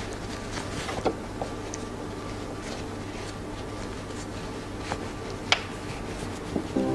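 Fabric being handled by hand on a sewing machine bed: soft rustling with a few sharp light clicks, over a steady low hum. The machine is not stitching.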